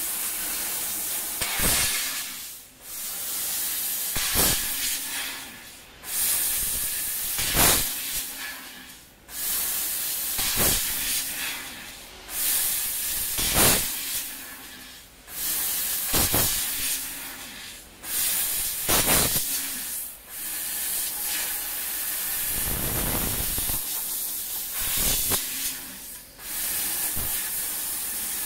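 Fiber laser cutting head working an aluminium profile: the assist gas hisses steadily from the nozzle, stopping briefly about every three seconds between cuts, with a louder burst of hiss in each cut. A low rumble comes in about two-thirds of the way through.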